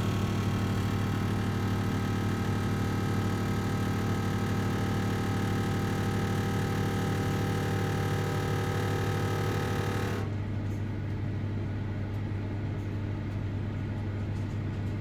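Bosch Series 4 combi microwave (CMA583MS0B) running with a steady low hum and droning tones: the internal resonance it makes when heating or cooling down, the sign of a fault that a replacement unit also has. About ten seconds in, the higher hiss cuts out suddenly and the low hum carries on.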